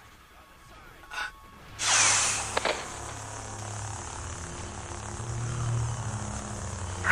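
Lightsaber sound effects: a sudden swing or strike about two seconds in, then a steady low hum with hiss as the blade stays lit.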